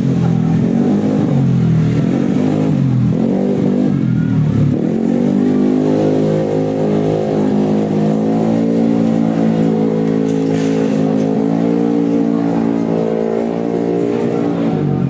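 Tuned 150cc automatic-scooter racing engine revving, its pitch rising and falling several times over the first five seconds, then held at a steady high note.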